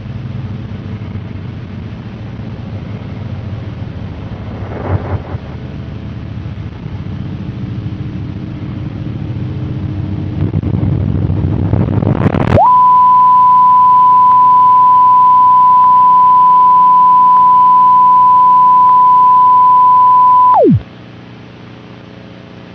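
A low, noisy drone grows louder for about twelve seconds, then cuts to a loud, steady single-pitched alert tone held for about eight seconds. The tone drops steeply in pitch and cuts out, leaving a quieter low hum and hiss.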